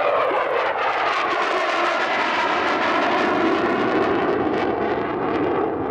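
F-16 Block 40 Fighting Falcon jet engine, loud and steady as the fighter flies past, with a slowly sweeping, hollow-sounding tone moving through the noise.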